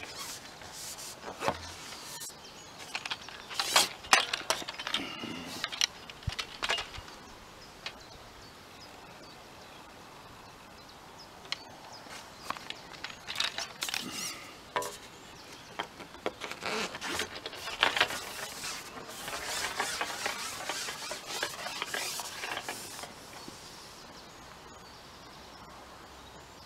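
Scattered clicks and knocks from a fishing pole and tackle being handled, the loudest about four seconds in. Birds sing outdoors, with a warbling song for a few seconds past the middle.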